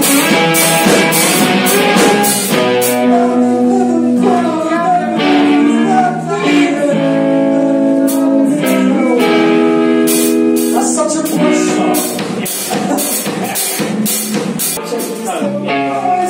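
A rock band playing a song together on drum kit, electric bass and guitars, with held chords. The drums thin out after the first couple of seconds and come back in hard about halfway through.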